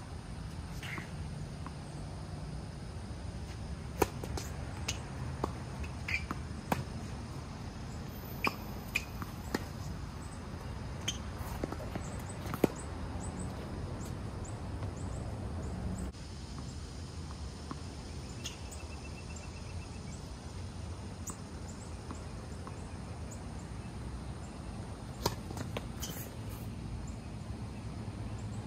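Tennis ball struck by rackets and bouncing on the court during a rally: a string of sharp pops at uneven intervals of about half a second to a second and a half, from about four to thirteen seconds in, then a few more near the end. A steady low rumble runs underneath.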